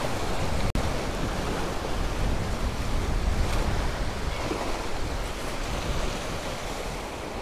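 Sea surf washing and breaking against the stone blocks of a rock jetty, with wind rumbling on the microphone.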